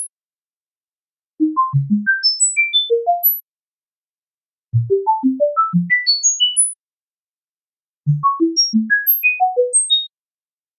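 Sequences of short, pure electronic beep tones, about six a second, hopping up and down in pitch but climbing overall from very low to very high. Three such runs of about two seconds each, with a silence of about a second and a half between them: a synthesized tone sweep played as tinnitus relief.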